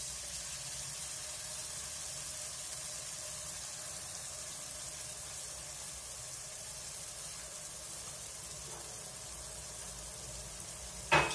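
Tomato sauce frying in olive oil and butter in a pan: a steady soft sizzle, with one short, loud knock near the end.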